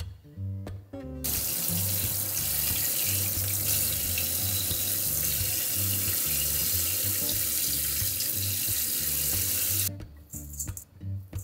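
Kitchen tap running as a spray into a stainless steel sink, the water splashing on the steel. It starts about a second in and shuts off near the end.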